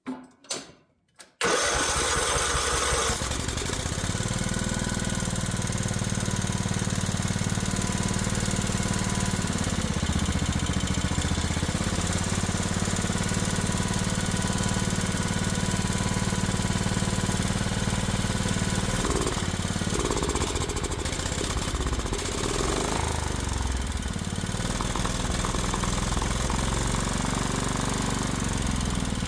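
Craftsman riding mower's engine cranked and catching about a second and a half in, then running steadily, its speed shifting a few times through the middle. It is still not running right after a governor adjustment and needs fine tuning.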